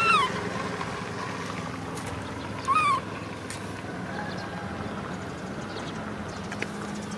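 Baby monkey giving two short high calls, one at the start and one about three seconds in, each bending up then down in pitch. A steady low hum runs underneath.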